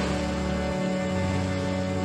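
Soft, sad background music of long held notes, with the bass note changing about a second in.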